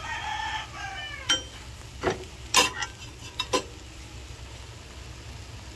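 Metal spatula clinking and scraping against a nonstick frying pan while handling a pancake: about six sharp clicks, the loudest about two and a half seconds in.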